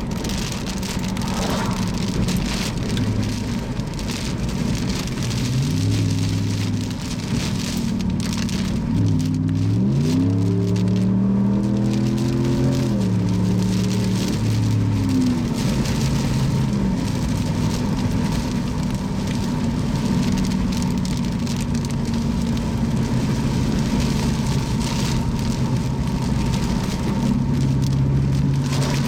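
Rain hitting a moving car, with the engine speeding up through several gear changes: its pitch rises and drops back a few times in the first half, then the engine runs steadily.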